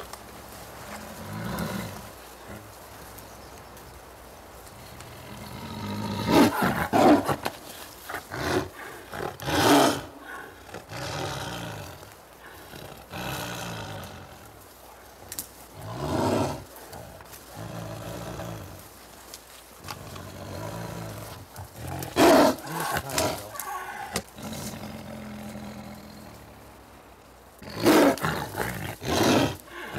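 A Siberian (Amur) tiger caught in a snare roaring in about five loud outbursts a few seconds apart, with quieter rumbling between them.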